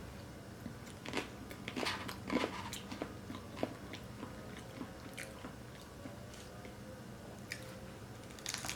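Close-miked crunching and chewing of a nacho cheese monster taco's crisp fried shell. Several sharp crunches come in the first few seconds, followed by quieter chewing, with a couple more crunches near the end.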